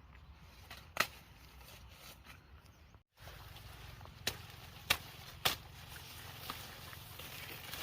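A handful of sharp snaps or knocks, one about a second in and three more spaced about half a second apart in the second half, over a steady low background hum, with a brief dropout about three seconds in.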